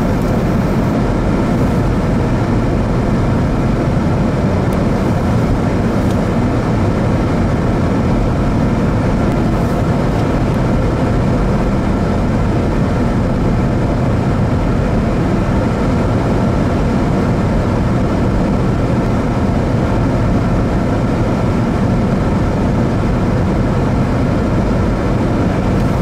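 Steady vehicle rumble and road noise on a slushy highway, unbroken throughout.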